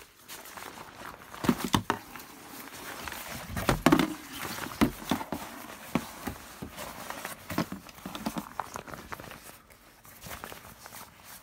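Rustling and crinkling of hip waders and their plastic wrapping as they are handled and shifted in a cardboard box. A few louder bumps come about one and a half seconds in and again around four seconds.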